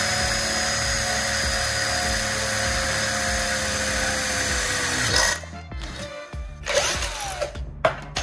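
Cordless drill running steadily as a twist bit bores through an aluminium channel, with a high motor whine that stops about five seconds in. A short second spin of the drill follows near the end, then a click.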